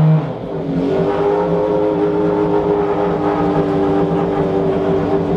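McLaren F1 GTR Longtail's BMW V12 engine dropping back from a rev at the very start, then settling into a steady idle.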